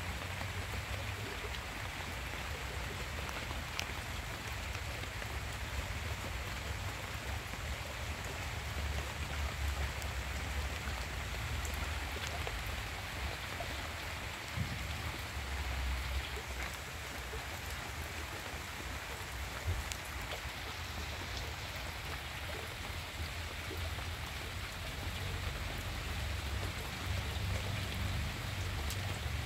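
Steady rain falling on garden foliage, with scattered individual drop ticks over a low rumble.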